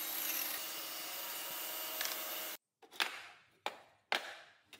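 Festool cordless table saw ripping a wooden board while a dust extractor runs, a steady whirring cut that stops abruptly about two and a half seconds in. Four sharp knocks follow, about half a second apart.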